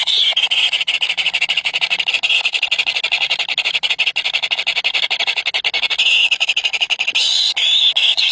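Nestling birds begging for food: a continuous, high-pitched stream of rapid cheeping calls, the sign of hungry chicks calling to be fed.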